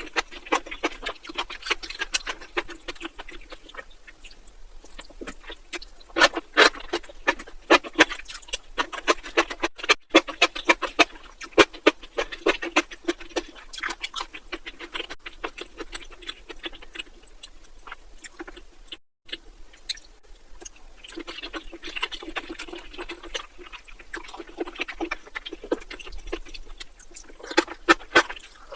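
Close-miked eating sounds: wet, irregular chewing, smacking and slurping of spicy mushrooms, with many quick clicks that come thick and fast.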